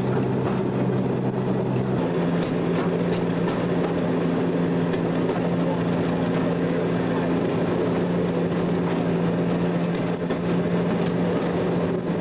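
Railroad speeder's engine running steadily as it rolls along the track, with occasional sharp clicks. About two seconds in, the engine note jumps to a new, slightly higher steady pitch.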